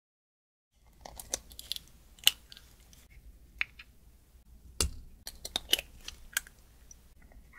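Raw eggs cracked open and separated by hand: sharp eggshell cracks and small clicks and taps of the shell halves as the yolk is passed between them, with the loudest crack about two seconds in.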